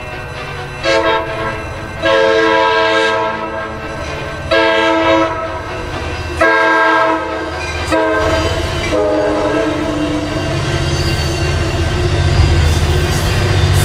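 Train horn sounding about five blasts, a short one first and then longer ones, the last one lower in pitch. After that a low rumble of the train running builds up steadily.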